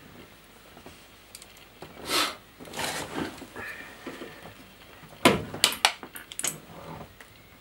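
Plastic door-card poppers being prised out of the door panel of a Mk1 Mazda Eunos Roadster: scattered clicks, scrapes and a short squeak, then a quick cluster of sharp plastic clicks about five seconds in.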